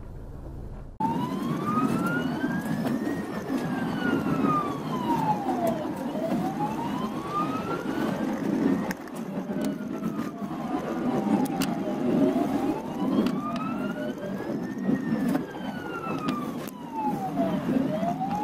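Ambulance siren wailing in slow rising and falling sweeps, each rise or fall lasting about three seconds, over the rumble of dense traffic. It comes in abruptly about a second in.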